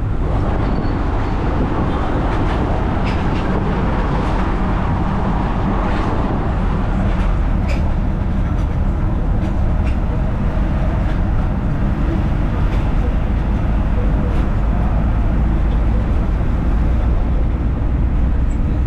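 Steady traffic noise from a moving vehicle: a constant low rumble with a road hiss over it.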